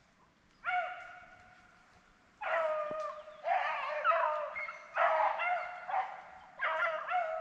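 A pack of beagle hounds baying as they run a rabbit's track, giving about five drawn-out bawls with several voices overlapping in the middle.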